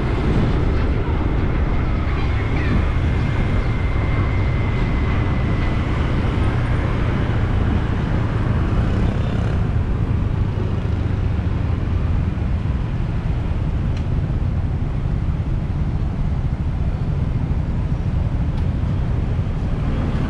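Steady low rumble of road traffic in a city street, with a faint thin high whine during the first few seconds.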